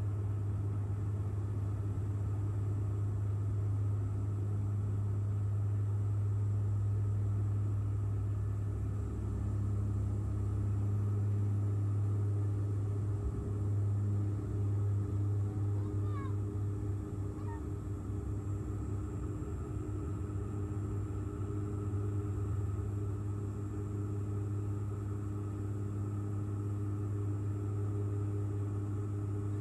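Airliner engine noise heard inside the cabin: a steady, loud drone with a strong low hum.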